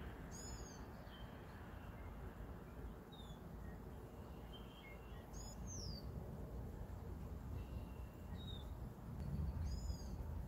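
A bird calls three times, a few seconds apart, each a short high curved note, with softer chirps in between. A steady background hiss runs underneath and swells with a low rumble near the end.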